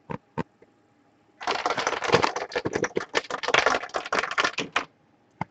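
A dense, rapid clatter of small hard pieces handled together, lasting about three and a half seconds, with a couple of single clicks before it and one after.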